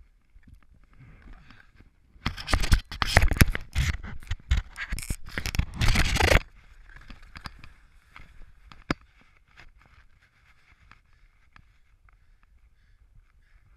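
Skis and gear scraping and crackling on crusty snow in a tight, branchy ski chute. The scraping is loud and harsh for about four seconds, starting about two seconds in and cutting off, then quieter scratching and a few light ticks.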